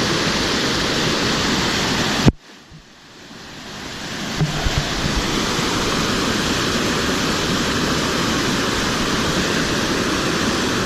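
A waterfall rushing steadily. About two seconds in, a sharp knock is followed by a sudden drop in the sound, which builds back up over the next couple of seconds, with a few light knocks along the way.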